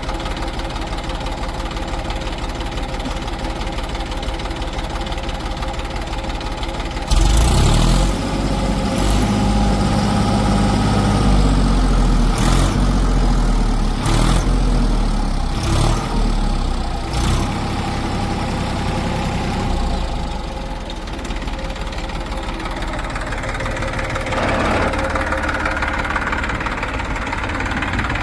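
Heavy diesel engine idling with a steady knock. About seven seconds in it revs up to a louder, deeper run under load, with several sharp clanks over the next ten seconds, then settles back toward idle.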